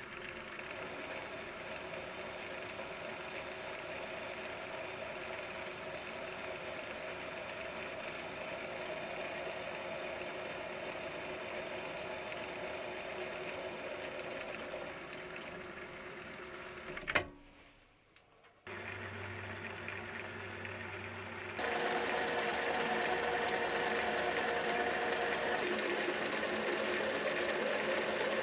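Mini lathe running and turning a metal spindle, the tool taking a cut with chips coming off. A sharp click about two-thirds of the way in, a brief near-quiet gap, then the lathe runs again and gets louder near the end as it cuts the fine thread on the adjustment screw.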